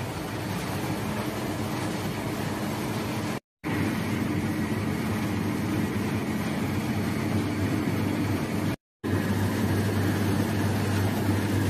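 Steady running noise of a commercial bakery rack oven, its fans and burner making a constant whir over a low hum. The sound cuts out briefly twice.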